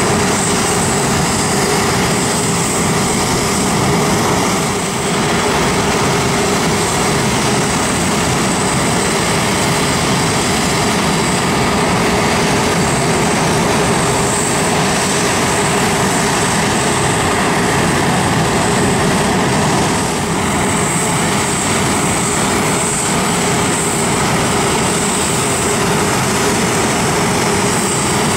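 Boeing 747-8F's GEnx-2B jet engines idling: a steady rush with a high whine over a lower hum.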